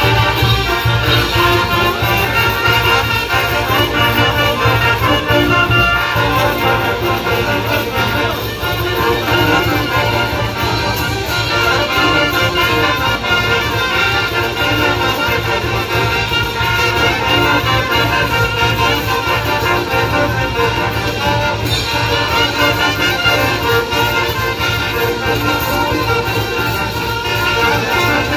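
Brass band playing a tune at full volume: saxophones, trumpets and baritone horns over a large bass drum and hand cymbals, without a pause.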